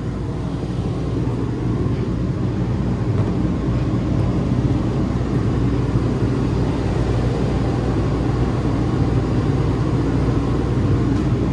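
Steady low rumble of an engine or motor running, slowly growing a little louder over the first few seconds.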